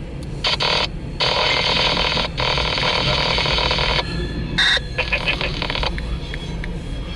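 Railroad scanner radio breaking into bursts of static hiss as transmissions key up and drop, with a short beep about four and a half seconds in, over a steady low rumble.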